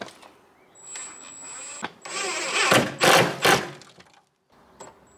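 Cordless drill driving a self-tapping screw into a plastic wheel-arch extension, pressed on hard. A faint whine about a second in, then the motor runs in loud surges for a second or two.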